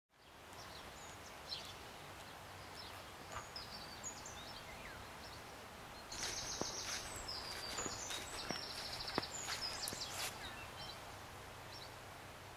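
Small birds chirping, with two rapid high trills in the second half, over faint outdoor ambience. A few sharp clicks come through around the trills.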